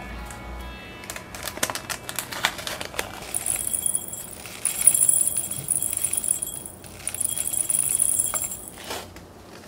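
A plastic packet of small Orbeez water beads is handled and opened with crinkling and clicks. About three seconds in, the beads start pouring into a glass jar, a dense high rattle of tiny beads pattering against the glass that goes on for about five seconds and then stops.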